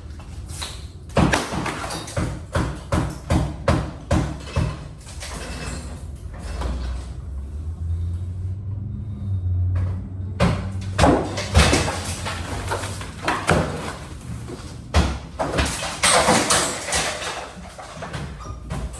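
Demolition work inside a large room: irregular knocks, bangs and clatter as ceiling material is pried loose and debris is handled. A steady low hum comes through in a quieter stretch midway, then the clattering picks up again.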